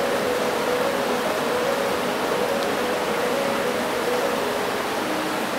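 Rushing whitewater of a river in high flood pouring through a low mill dam: a steady, full rush of water. Faint held musical notes sit under it.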